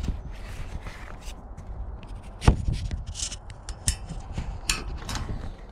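Handling noise of the camera rubbing against wet plastic sheeting, with scattered clicks and a sharp knock about two and a half seconds in, and two smaller knocks later.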